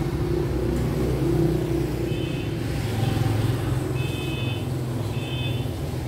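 Motorbikes running past on a town street, with a steady low engine hum that swells as they pass. Three short high beeps come in, about two, four and five seconds in.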